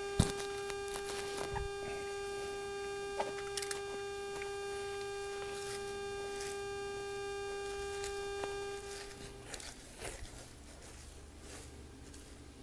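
A steady pitched hum that fades out about nine seconds in, with a few light knocks and rustles from mulch being spread by hand.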